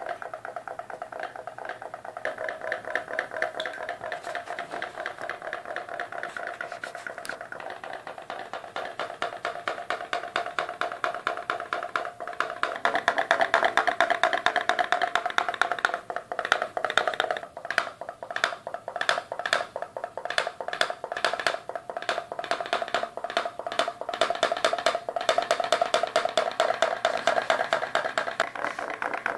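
Homemade pop-pop boat's candle-heated beer-can boiler putt-putting: a rapid, steady tapping as water flashes to steam and pulses in and out of the straw exhausts, driving the boat. It grows louder about halfway through.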